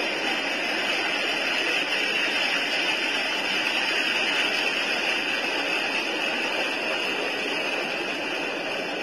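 Sea surf washing over shore rocks, played back as a recording through a phone's small speaker: a steady rushing hiss.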